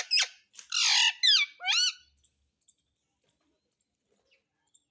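Pet parrot squawking and calling: a quick run of short calls, each rising and falling in pitch, that stops about two seconds in.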